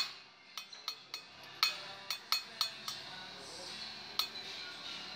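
Light metallic clicks and clinks from a part being handled against the valve guides of a cylinder head while the freshly reamed guides are checked. About ten irregular sharp ticks, most in the first three seconds and one more a little past four seconds.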